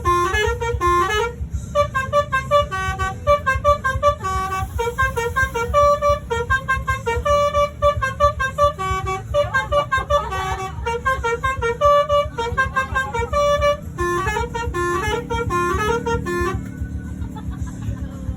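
Basuri (telolet) musical bus horn playing a quick tune of short, stepped notes over the low rumble of the bus; the tune stops near the end, leaving the rumble.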